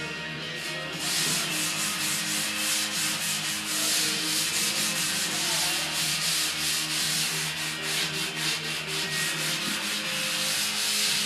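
Hand sanding block scraping over a foam surfboard blank in quick, steady back-and-forth strokes, starting about a second in.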